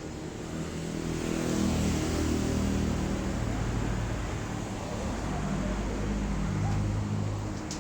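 A motor vehicle's engine running close by, growing louder from about a second in and easing off near the end.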